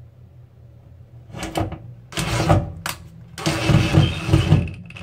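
DeWalt 20V cordless drill/driver driving a metal hollow-wall anchor into drywall, run in several short bursts, the longest about a second and a half near the end.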